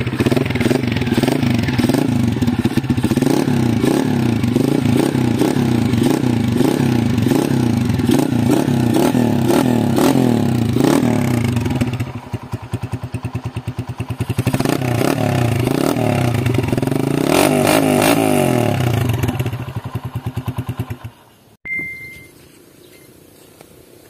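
Honda TMX 155's single-cylinder four-stroke engine, its exhaust fitted with a silencer, revved over and over in quick throttle blips with a couple of short lulls, then cutting off near the end.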